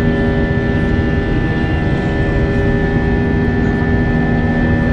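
Cabin noise inside an Airbus A321-200 climbing after takeoff: a steady drone of jet engines and airflow, with several steady whining tones over it.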